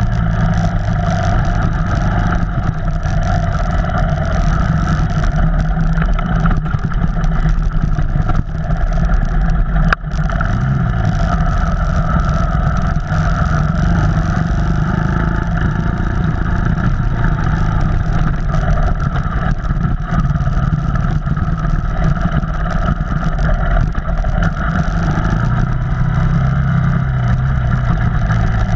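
Off-road vehicle engine running steadily under way, with a heavy low rumble and the revs rising and falling a little. There is a brief dip in the sound about ten seconds in.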